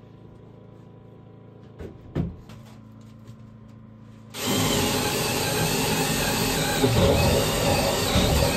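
A couple of light knocks, then about four seconds in a power tool starts and runs loud and steady, its pitch wavering slightly as it works.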